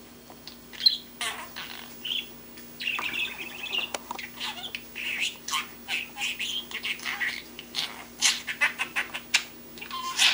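Young male budgerigar babbling: a fast, uneven run of chirps, squawky notes and warbles, the chatter of a baby budgie learning to talk.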